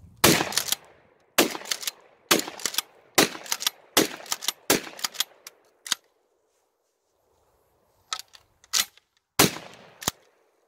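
Charles Daly 301 pump-action 12-gauge shotgun fired rapidly, about six loud shots roughly a second apart, with the clack of the pump being racked after each. After a pause with a few more mechanical clacks, one last shot comes near the end.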